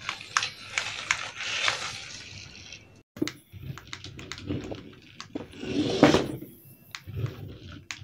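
Remote-control toy car driving: its small electric motor and tyres running over a hard floor, with many short clicks and knocks. The sound drops out briefly about three seconds in, then comes back rougher and lower, with its loudest burst near the sixth second.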